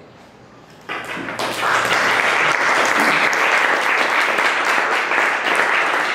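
Audience applauding at the close of a lecture, starting about a second in.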